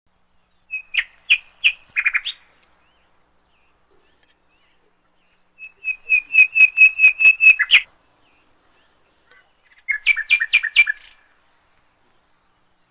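Bird chirping in three bursts of quick, repeated high notes, about five a second; the middle burst is the longest, with about ten notes.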